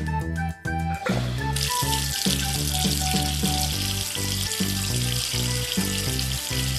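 Shower water spraying: a steady hiss that starts about a second in, over background music with a steady rhythm.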